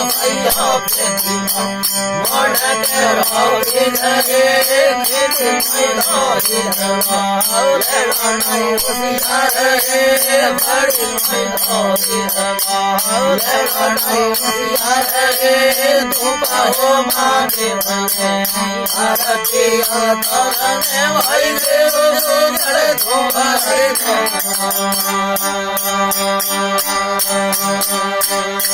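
Rajasthani folk devotional music: a wavering melodic lead over a steady drone, with jingling percussion. About 24 seconds in, the lead gives way to sustained held notes.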